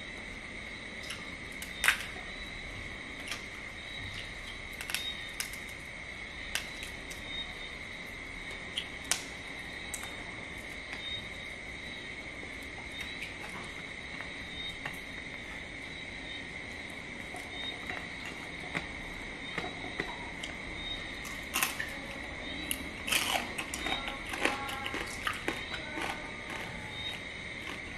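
Crab shell cracking and clicking as it is pulled apart by hand, with the sharpest crack about two seconds in, then a run of chewing crunches late on. Under it all runs a steady high-pitched drone.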